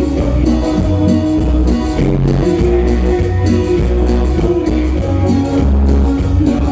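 Live band music: guitar over a heavy, repeating bass line and a steady percussion beat.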